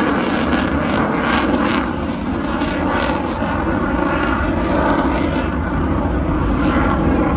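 Lockheed Martin F-35A's single Pratt & Whitney F135 afterburning turbofan running loud and steady as the jet flies its display, with a crackle in the first three seconds.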